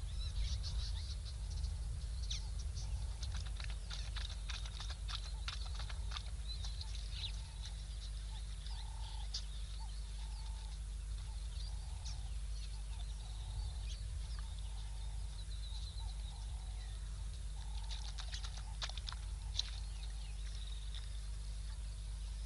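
Wild birds calling: clusters of quick high chirps near the start and again near the end, with a soft lower call repeating about once a second in between, over a steady low hum.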